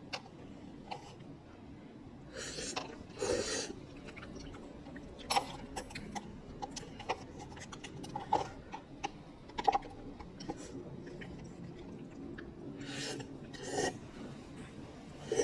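Spicy instant noodles being eaten: chewing and slurping, with two longer noisy slurps or breaths and scattered sharp clicks.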